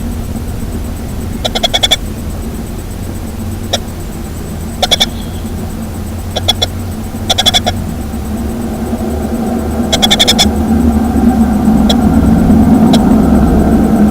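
Baby birds in the nest giving begging calls: short bursts of rapid, high chattering chirps, about six times, with a few single sharp clicks between. A low engine rumble from a vehicle grows louder over the second half.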